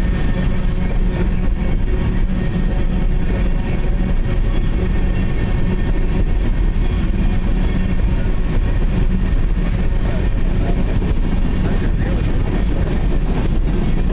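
Coal train's aluminium gondola cars rolling past close by: a steady rumble of steel wheels on the rails.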